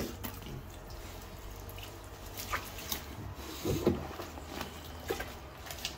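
A young puppy in a bathtub gives one short whimper about two-thirds of the way in; otherwise only a few faint clicks.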